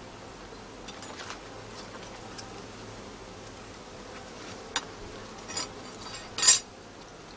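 Honeybees buzzing around an open hive as frames are inspected, a faint steady hum. A few brief knocks and rustles sound over it; the loudest is a short sharp noise about six and a half seconds in.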